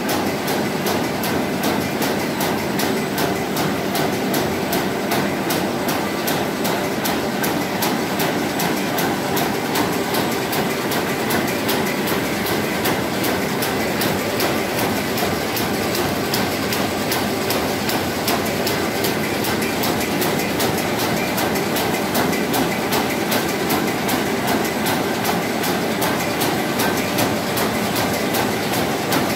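W+H Matador S flat/satchel paper bag making machine with in-line printer running: a steady mechanical clatter of fast, evenly spaced clicks from its rollers and gears over a constant hum.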